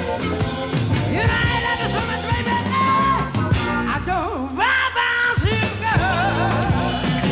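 A live rock band plays, played back from cassette tape. A bending lead melody runs over bass and drums.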